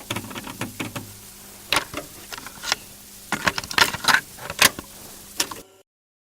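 Irregular sharp clicks and rattles over a steady hiss and faint low hum, cutting off suddenly near the end.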